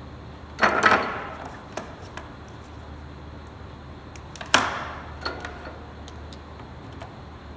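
Hand tools handled on a wooden workbench: nose pliers and a soldering iron in its metal coil stand clack and clatter. Two clusters of sharp clacks with a brief ring, just over half a second in and about four and a half seconds in, with a few lighter clicks between, over a steady low hum.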